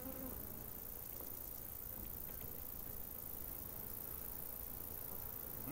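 Faint steady background noise, an even low hiss with a few tiny ticks and no clear tune or voice.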